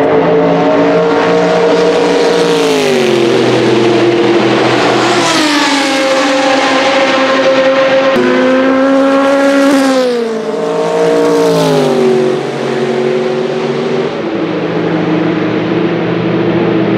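Sauber Mercedes C11's twin-turbo Mercedes M119 V8 racing past at speed, loud. Its note drops in pitch a couple of seconds in, climbs again about halfway through, then falls away in steps before settling.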